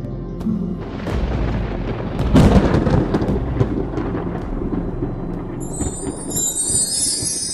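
Thunder sound effect: a rolling rumble with crackles that swells about a second in, is loudest around two and a half seconds in, then dies away over a low music drone.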